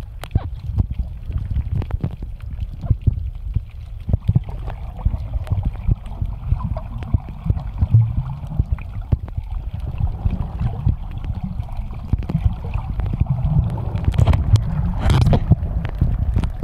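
Underwater sound through an action camera's waterproof housing: a muffled low rumble of moving water with scattered clicks and crackles, getting louder and more bubbly near the end.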